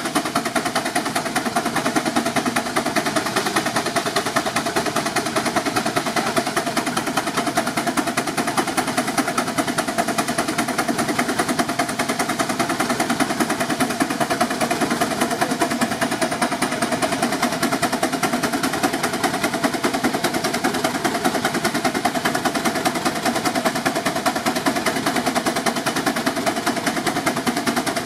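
A 6 hp Advance steam traction engine, a scratch-built reproduction, working on a dynamometer. Its exhaust fires fast, even, sharp beats at a steady pace under load.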